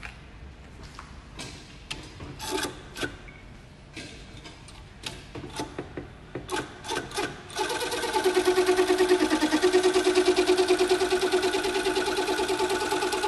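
Scattered clicks and knocks, then about seven and a half seconds in an industrial sewing machine starts running at speed, stitching through leather with a fast, even needle rhythm and a steady hum.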